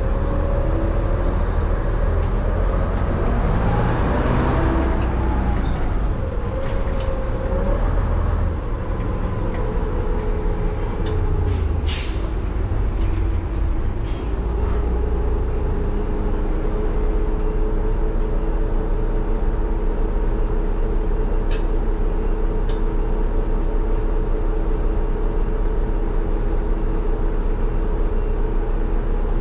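1976 Leyland Leopard bus's Leyland 680 diesel engine running under way; its pitch rises and falls about four seconds in, then holds steady. A repeating high beep sounds through most of it, with a few short sharp clicks or air hisses.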